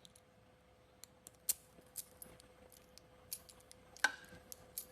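Faint, scattered small metal clicks and taps of a newly cut key being handled and worked in a Honda door and ignition lock.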